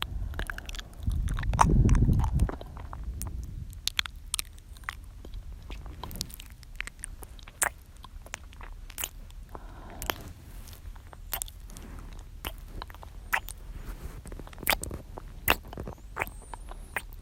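Close-miked ASMR mouth sounds: irregular wet clicks and smacks of the lips and tongue, with a louder low rush of breath on the microphone about a second in.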